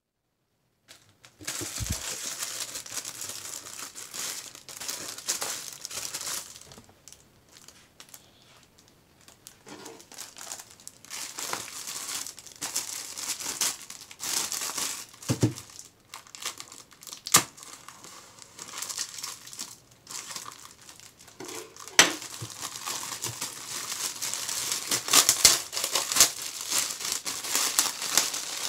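Clear plastic wrap crinkling and tearing as it is pulled off a tablet's leather-look case, starting after a moment of silence, with a few sharp snaps along the way.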